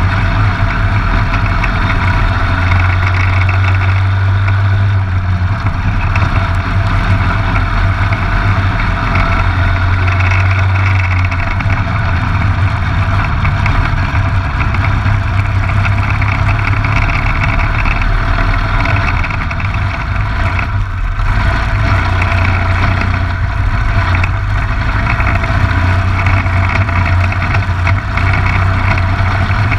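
Waller-built Briggs & Stratton LO206 single-cylinder four-stroke kart engine running hard through race laps, its note dipping briefly about twenty seconds in, with wind rushing over the fairing-mounted microphone.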